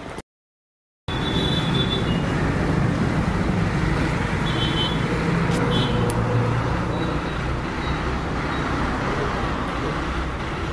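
Steady roadside traffic noise, with the low hum of a stationary Ashok Leyland school bus's diesel engine idling, and a few short high chirps. The sound comes in after a second of silence near the start.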